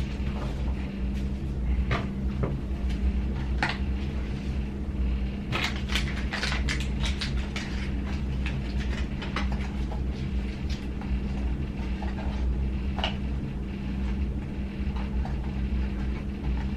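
Scattered clicks, taps and light scrapes of hard plastic being handled, thickest in a flurry around the middle, over a steady low electrical hum.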